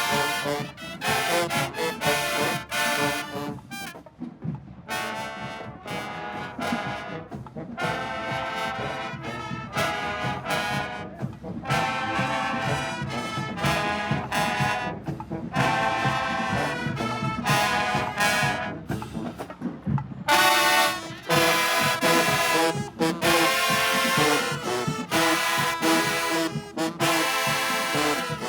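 Marching band playing, brass leading with trombones and trumpets in short repeated phrases. The band comes in fuller and louder about two-thirds of the way through.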